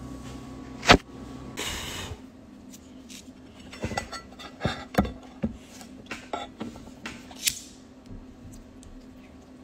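A sharp click about a second in, then a run of irregular short clicks over a few seconds from a hand-held lighter being struck repeatedly until it lights.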